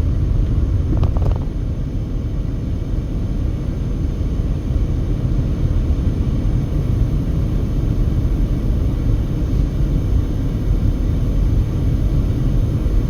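Road noise inside a moving passenger car at highway speed: a steady low rumble of tyres and wind.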